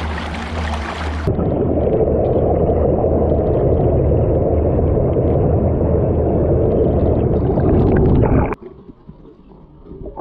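Boat engine humming steadily with water splashing at the hull. About a second in, the sound turns muffled as the microphone goes underwater, and a loud rush of water and bubbles streams past the boat's side. Near the end the rush drops off sharply to a much quieter underwater hiss.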